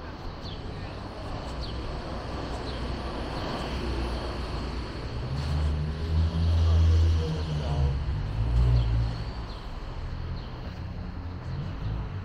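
City street traffic noise, with a heavy low rumble that swells about five seconds in and eases off about four seconds later.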